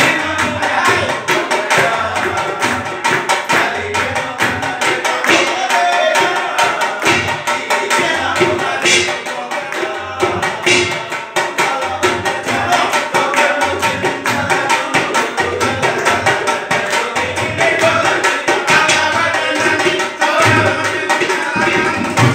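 Devotional group bhajan music: two-headed barrel hand drums played in a fast, steady rhythm, with a group of voices singing along.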